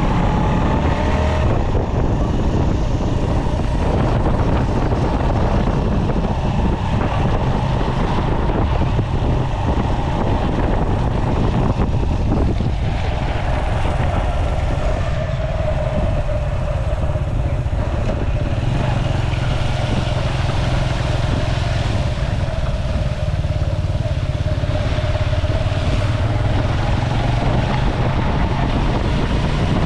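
Motorcycle running while on the move, with a steady low rumble and a faint whine that sinks in pitch midway and climbs again near the end.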